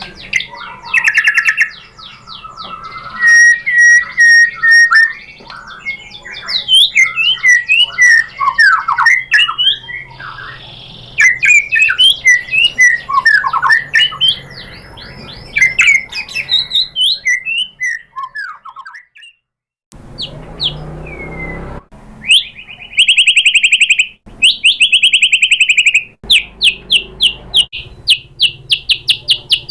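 White-rumped shama singing loudly, a varied run of whistles, slurred notes and rapid chatters, unloading its repertoire of mimicked phrases. After a brief break about two-thirds in, it goes into long strings of fast repeated notes.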